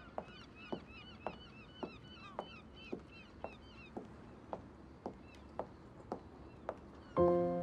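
Footsteps: shoes clicking on a hard floor at a steady walk, about two steps a second. Music comes in near the end.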